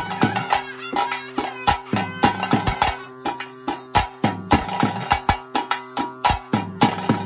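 Traditional ritual music: a reed pipe plays a melody over a steady drone, with fast, sharp drum strokes throughout.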